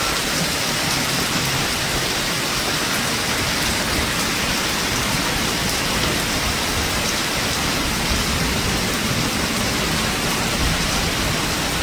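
Heavy rain pouring down steadily, an even, unbroken wash of rain noise.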